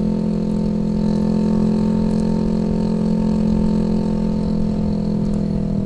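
Honda ADV150 scooter's single-cylinder engine running at a steady cruise, holding an even drone at constant revs, with wind rumble on the microphone.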